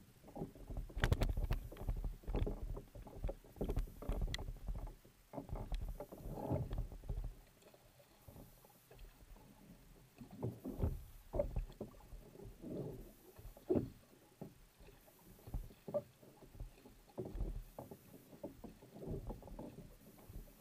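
Kayak paddle strokes: the blade splashing into and out of the water on alternate sides, roughly once a second, over the wash of water along the hull.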